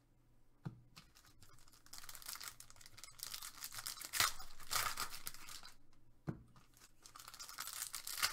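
Foil wrapper of a Panini Select basketball card pack being torn open by hand: scratchy tearing and crinkling in several bursts, with a few sharp clicks, loudest about four seconds in.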